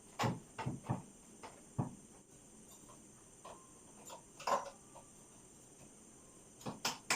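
Scattered metal clicks and knocks of hand tools and parts while the speedometer cable and brake caliper are fitted to a motorcycle's front wheel, a few sharp taps with quiet gaps between, a small cluster near the start and another near the end.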